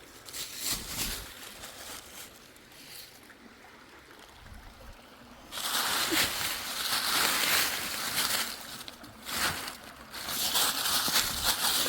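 Creek water sloshing and rushing, coming in suddenly about halfway through, easing off briefly, then returning.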